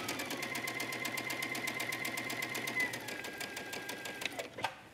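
Brother computerized sewing machine running a straight stay stitch at steady speed: rapid, even needle strokes over a steady motor whine. The whine drops a little in pitch about three seconds in, and the machine stops near the end, followed by a click.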